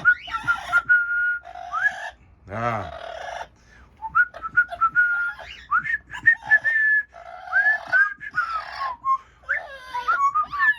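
Amazon parrot whistling: a run of short whistled notes, mostly held at one pitch with quick upward slides, broken by rougher, raspy chatter.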